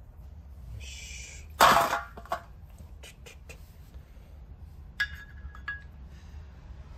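Aluminium monoblock racing brake caliper and its pistons being handled as the pistons are refitted into their bores. A loud knock comes about one and a half seconds in, then a few light clicks, and a metallic clink with a brief ring about five seconds in.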